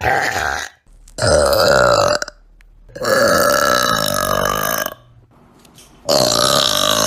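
A person belching loudly four times in succession, each a long, pitched burp of one to two seconds with short pauses between.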